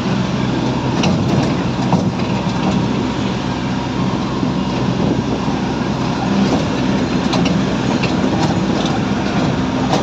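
Small toy train running steadily: a constant low engine hum with scattered clicks from the wheels and carriages.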